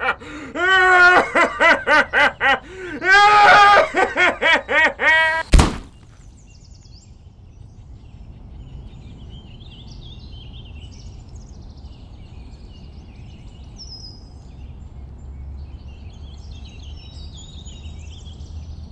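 A voice laughing in rapid bursts for about five seconds, cut off by a single sharp bang. After that come quiet outdoor ambience and scattered birds chirping.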